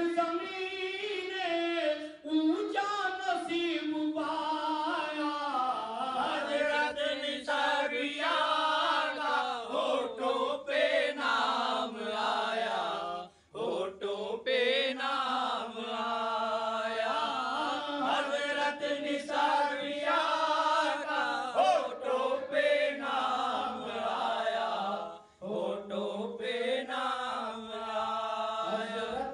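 Men singing a devotional chant through a microphone, one lead voice with others joining, in long held, bending notes. The singing breaks off briefly twice, about halfway through and near the end.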